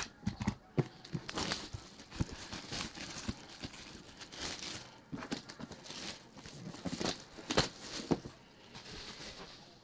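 Clear plastic shrink wrap crinkling and tearing as it is stripped off a cardboard trading-card box, a run of irregular crackles with a few sharper snaps, one of the loudest about three quarters of the way through.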